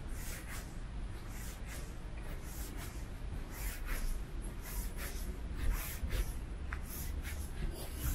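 Footsteps on pavement, about two steps a second, scuffing lightly, over a steady low city rumble.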